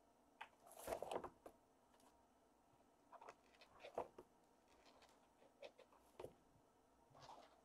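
Faint, scattered taps and scuffles of kittens moving about: one at a metal food bowl, then stepping over a corrugated cardboard scratcher.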